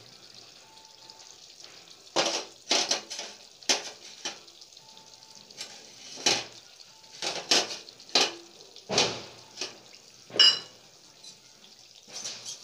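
A metal utensil stirring thick brinjal curry in a kadai, with irregular scrapes and clinks against the pan, the loudest a ringing clink about ten seconds in.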